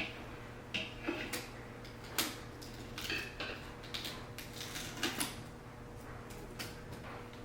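Scattered light clicks and knocks of household objects being handled, about a dozen spread unevenly over several seconds, over a faint steady hum.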